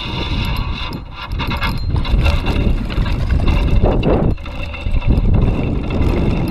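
Wind rumbling on the microphone while a spinning reel is wound in on a hooked rainbow trout, with a short splashy burst about four seconds in as the fish is lifted from the water.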